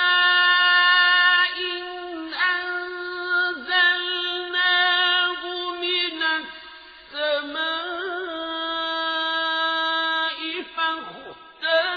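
A male voice chanting Quranic recitation in the melodic tajweed style, holding long drawn-out notes with ornamented slides between them and a short breath pause about seven seconds in.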